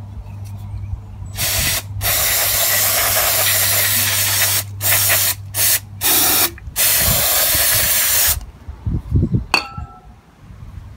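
Aerosol can of Gumout Jet Spray carburetor cleaner hissing onto a lawn mower engine's carburetor linkage in a series of sprays: one long and several short, with brief breaks, over about seven seconds. A few light knocks follow near the end.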